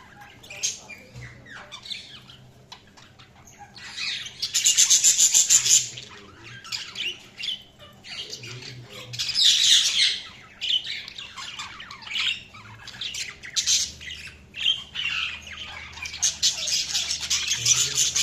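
Budgerigars chirping and chattering, with two loud harsh squawking bursts: one about four seconds in that lasts a couple of seconds, and another starting near the end.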